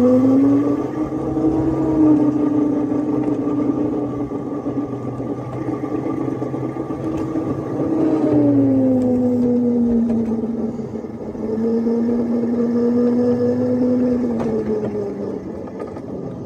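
Drive of a 7½-inch gauge ride-on locomotive running along the track: its whining tone rises as it speeds up at the start, holds steady, drops a little about eight seconds in, and falls away near the end as it slows to a stop. A few sharp clicks sound over it.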